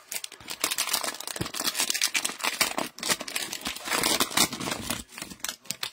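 Plastic cellophane wrapper of a trading-card cello pack being torn open and crumpled by gloved hands. It makes a dense crinkling crackle that stops about five seconds in.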